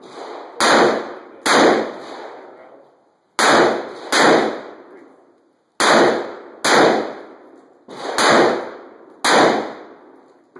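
Two magnum revolvers, a .454 Casull Taurus Raging Bull and an S&W .460, firing in turn: about eight very loud shots at uneven spacing over ten seconds, each ringing out with about a second of echo.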